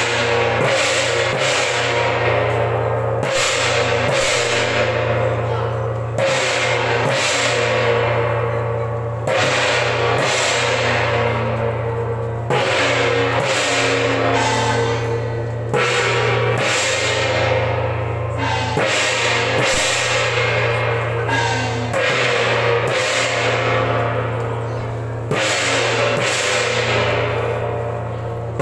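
Temple-procession gong-and-cymbal percussion: loud gong and cymbal crashes about every three seconds, each ringing out and fading, with quicker drum and cymbal strikes between them.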